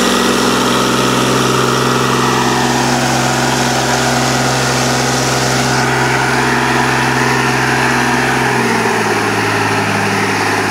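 A Fiat 540 Special tractor's four-cylinder diesel engine runs steadily under load while pulling a mounted plough through the soil. Its note drops slightly about three-quarters of the way through.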